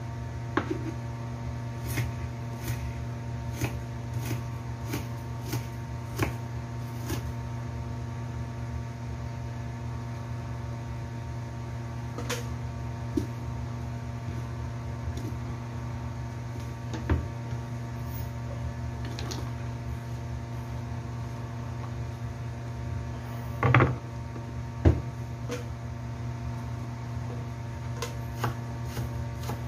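Kitchen knife chopping red onion on a wooden cutting board: sharp taps of the blade on the board, about one a second at first, then sparser, with the two loudest near the end. A steady low hum runs underneath.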